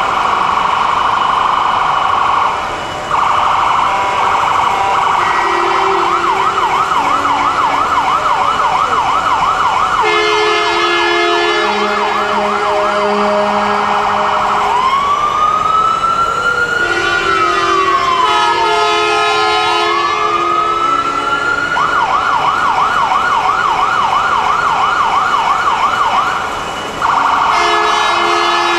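Police-style escort vehicle's electronic siren sounding continuously. It switches between a fast yelp and a slow rising and falling wail, cutting out briefly twice, with short steady blasts of a truck air horn.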